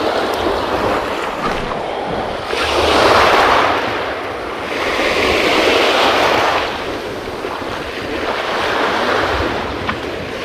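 Small sea waves breaking and washing up a gravel beach, the surf swelling and fading in three surges.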